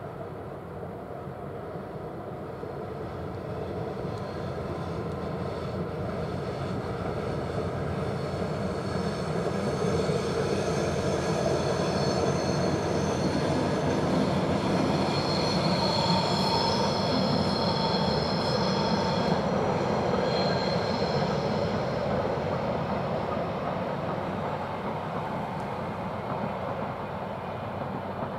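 Diesel-hauled freight train of open wagons rolling across a viaduct: a steady rumble that swells to a peak in the middle and fades again, with high wheels squealing through the middle stretch.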